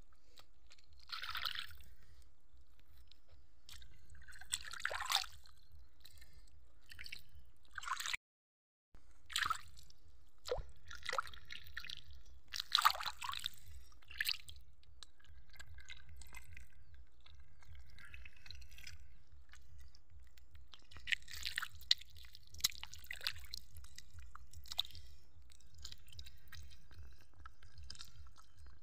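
Wet mud squelching and shallow water splashing and dripping as hands dig and scoop around a stranded fish, in irregular bursts over a faint low rumble.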